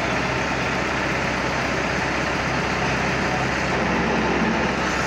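Engine of a Mazda truck-mounted crane running steadily while the crane holds a load on its hook, with a slight swell about four seconds in.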